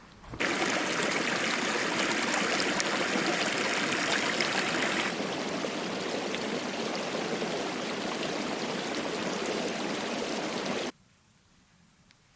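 Rushing water of a mountain stream, a steady hiss. It drops a little in level about five seconds in and stops abruptly near the end.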